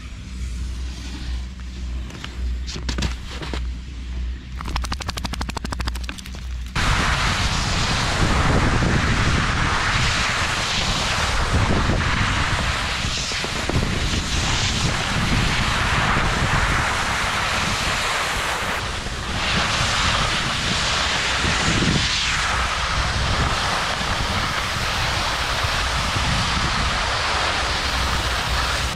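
Skis sliding and scraping over snow, with wind buffeting the body-worn camera's microphone. After a quieter start, the noise comes in suddenly about seven seconds in and stays loud.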